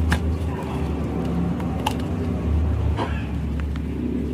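A steady low background hum with three sharp clicks of small parts being handled and fitted into a plastic Bluetooth speaker casing: one just after the start, one about two seconds in, one about three seconds in.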